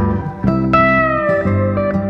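Background music: a guitar melody with sliding notes over a steady accompaniment.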